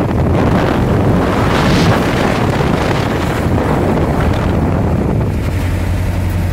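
Wind rushing past an open vehicle window at road speed, over a steady low hum of the vehicle's engine and tyres on the road.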